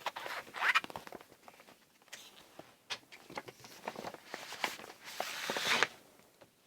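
Plastic packaging of a cross-stitch kit being opened by hand: crackling, rustling and clicks, with a louder, longer scratchy stretch about four and a half seconds in.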